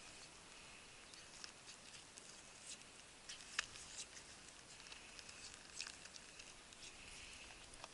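Faint scattered clicks and ticks of a northern goshawk's beak tearing at raw meat on a leather falconry glove, a few sharper ticks near the middle, over a faint hiss.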